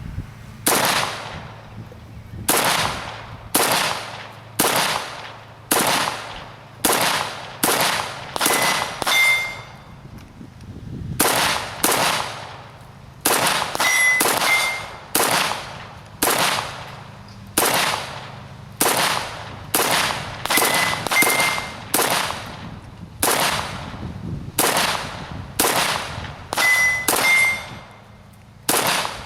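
Semi-automatic rifle fire from an AK-74 in 5.45×39 mm, firing 7N6 ammunition: a steady string of single shots at about one a second, a few of them followed by brief metallic pings.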